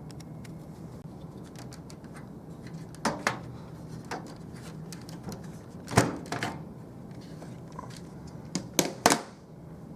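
Scattered clicks and knocks of a desktop PC's inner casing being handled and pulled off to expose the drive bay, the loudest near the middle and a quick cluster near the end, over a low steady hum.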